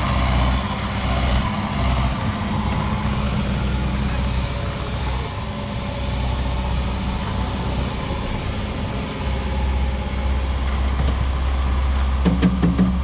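Skid steer engine running steadily as the machine works, with a few sharp metallic clanks near the end.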